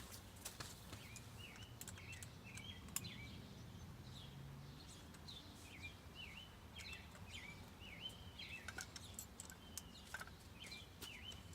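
Faint outdoor ambience with a bird singing short, repeated chirps throughout, and a few light clicks.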